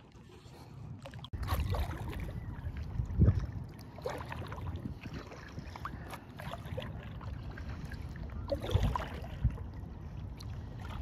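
Water splashing and sloshing around an inflatable kayak being paddled, with irregular paddle strokes over a low rumble; the strongest strokes come about three seconds in and again near the end.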